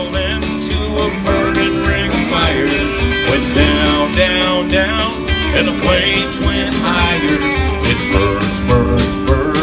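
Country music with guitar and a steady bass beat played through PA speakers, with a man singing into a microphone.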